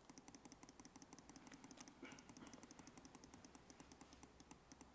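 Faint, rapid clicking of computer controls, several clicks a second, with no break.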